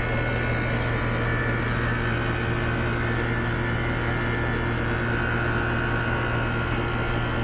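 Air-conditioning condensing unit running just after start-up: a steady electrical hum from the compressor motor with fan noise.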